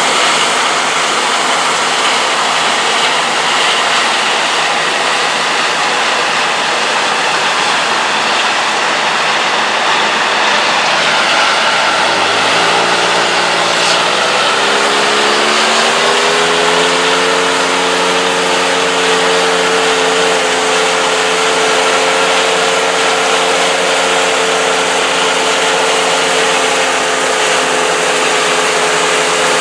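Combine harvester engine and threshing machinery running steadily while harvesting soybeans. About twelve seconds in, an engine note rises in pitch over several seconds, then holds steady at the higher pitch.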